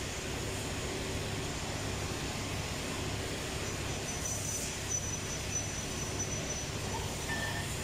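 Steady workshop background drone from running machinery: a low hum with an even hiss. About seven seconds in comes a brief light metallic ring as a steel cylinder liner is handled.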